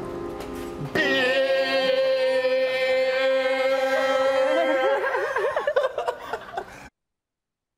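Tail of piano music, then a voice comes in about a second in and holds one long sung note for about four seconds, breaking into wavering, laughing voices before the sound cuts off suddenly.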